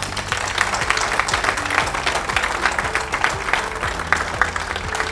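A crowd applauding, many hands clapping densely, with music playing underneath.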